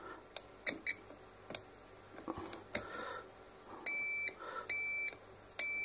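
Three electronic beeps, each lasting under half a second and coming just under a second apart, preceded by a few faint light clicks.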